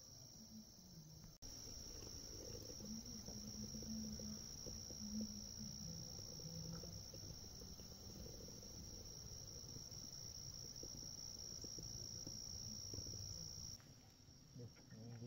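Crickets trilling in one steady, high-pitched drone that stops abruptly near the end.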